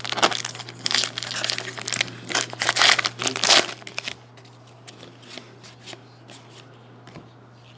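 Foil trading card pack being torn open, its wrapper crinkling loudly for about three and a half seconds, then a few faint clicks as the cards are handled.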